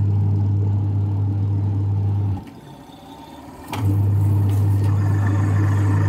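LG semi-automatic twin-tub washing machine's motor running with a steady low hum, with no gearbox noise, since its gearbox has just been replaced. A little over two seconds in the motor stops for about a second and a half, then starts again, as a pulsator wash motor does when it reverses direction.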